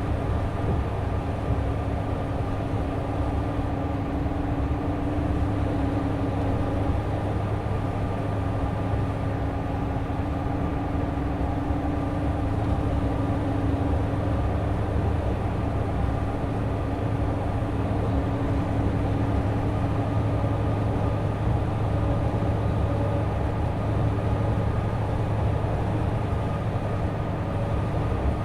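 Mitsubishi Fuso Aero Ace coach's straight-six diesel engine and tyres running steadily at cruising speed, with a low drone and a steady hum from the driveline.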